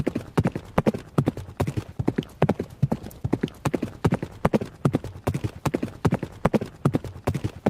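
A horse running, its hooves striking the ground in quick groups of several beats, one group a little more often than once a second, in a steady rhythm.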